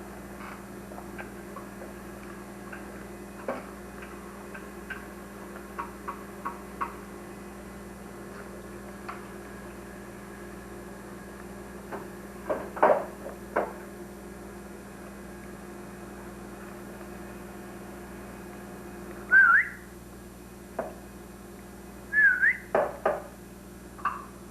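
A steady electrical hum with scattered light clicks and knocks. Twice near the end comes a short whistled chirp that glides up and down in pitch, the loudest sound here.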